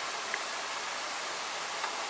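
Steady outdoor hiss like rushing water, with two faint, very short chirps, one early and one near the end; no bunting song phrase is heard.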